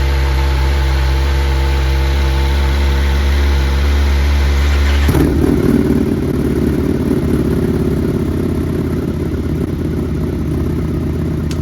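Motorcycle engine running steadily while riding, with a sudden change in the engine note about five seconds in, as the deep drone gives way to a rougher, busier sound.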